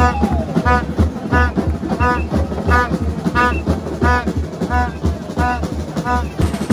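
Supporters' band playing: a horn blows about ten short, evenly spaced notes, one every two-thirds of a second, over a steady drum beat.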